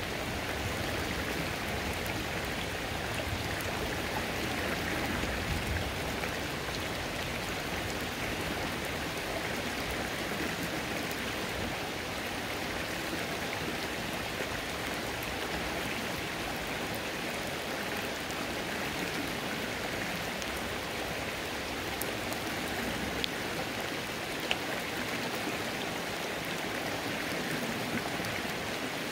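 Rain falling on a creek: a steady hiss of raindrops mixed with running water. Two sharper ticks stand out about three-quarters of the way through.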